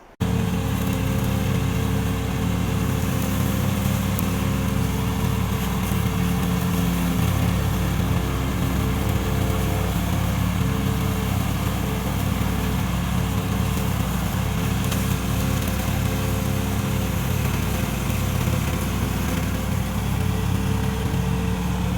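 Engine of a remote-control lawn mower running steadily at a constant speed.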